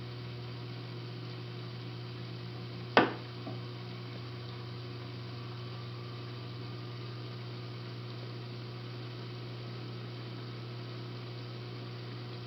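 Steady electrical hum of reef-aquarium equipment running. About three seconds in comes one sharp click or tap, followed by a fainter one half a second later.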